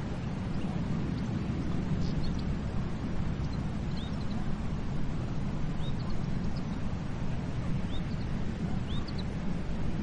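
Steady rushing sound of the sea, with small birds chirping over it: a few short, high, rising chirps every second or two in the second half.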